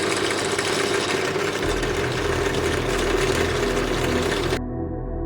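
Power drill running a tile hole saw that grinds through a plate, a steady motor hum under a harsh hiss, cutting off suddenly near the end. Background music comes in underneath and carries on after the cut.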